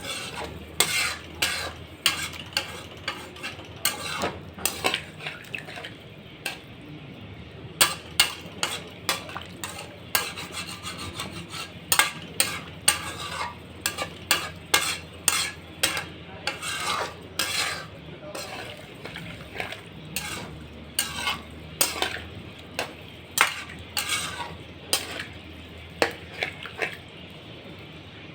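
A metal spoon stirring chicken curry in a metal pan, with irregular clinks and scrapes against the pan and a light sizzle of frying underneath.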